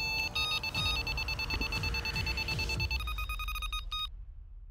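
Electronic carp bite alarms on the rod pod sounding a rapid, unbroken string of high beeps for about four seconds, the tone shifting about three seconds in, then cutting off suddenly. A fish is running with the bait and pulling line off the reel.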